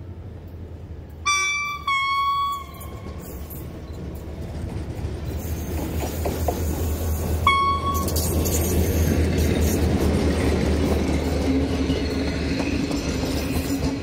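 Locomotive horn sounding two short blasts, then a third brief one several seconds later. The locomotive's engine rumble and the train's running noise build as it passes close and pulls away.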